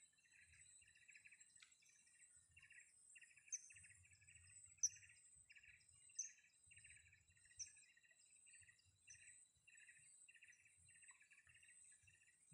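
Faint outdoor ambience: an insect chirping in a regular pulse a little more than once a second over a thin, steady high insect whine, while a bird gives a string of short, high, falling calls from about three to nine seconds in, the loudest about five seconds in.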